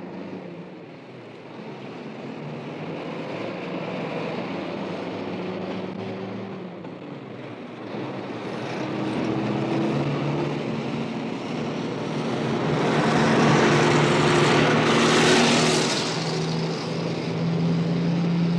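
Heavy road traffic: a steady wash of engine and tyre noise with a low engine hum. It swells as a vehicle passes close about two-thirds of the way through.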